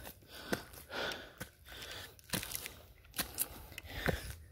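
Footsteps scuffing and crunching on gritty stone steps and a dirt path strewn with dry leaves, about one a second, with the climber's hard breathing.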